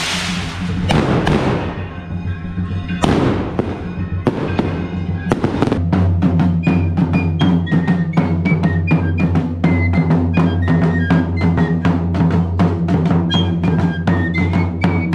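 Fireworks go off in the first five seconds or so, a series of bangs with long decays. Then a traditional flute-and-drum pair takes over: a small, high-pitched flute plays a stepping melody over regular beats, about three a second, struck with a stick on a large double-headed drum.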